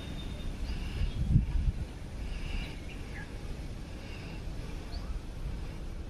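Outdoor ambience: a low rumble on the microphone with a thump about a second and a half in, and a few faint, short bird chirps.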